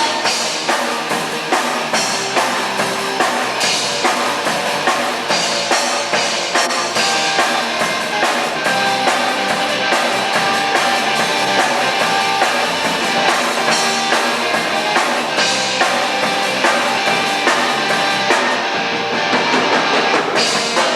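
A rock band playing live, with a drum kit keeping a steady beat under guitar.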